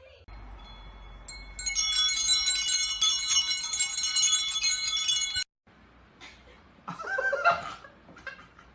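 Chimes ringing: many high, bright tones struck over and over, cutting off suddenly about five and a half seconds in. A short burst of a person's voice comes near the end.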